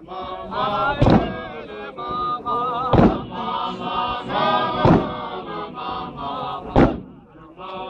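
Zion Christian Church Mokhukhu men's group chanting a hymn together, with four heavy unison stomps of the dancers' feet landing on the dirt about two seconds apart. The singing dips near the end.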